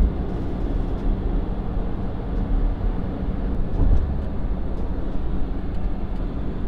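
Steady road and engine noise inside a small car's cabin while cruising on a highway: a deep, even rumble of tyres and engine.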